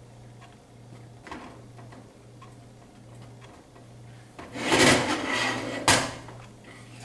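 Wooden spoon stirring thick peanut butter and sugar syrup in a stainless steel saucepan, with soft knocks of the spoon against the pan. About four and a half seconds in, the saucepan is grabbed by its handle and shifted on the electric coil burner: a scraping rattle for about a second and a half, ending in a sharp clunk.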